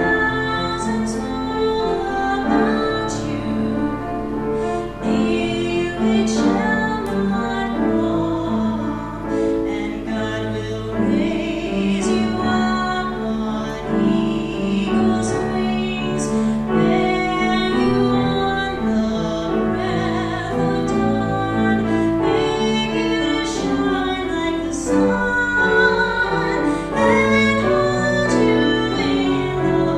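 A woman singing a sacred solo while accompanying herself on piano.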